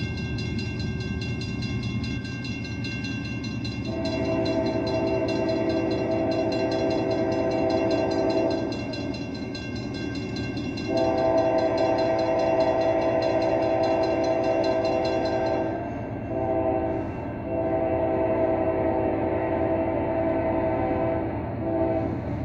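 Air horn of an approaching CSX CM44AC locomotive, a three-chime Nathan K5LA, sounding the grade-crossing signal: two long blasts, a short one, then a long one, over the low rumble of the train.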